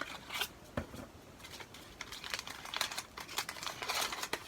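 Wrapping around a small beauty product being torn and crumpled by hand as it is unwrapped, in quick irregular crinkles.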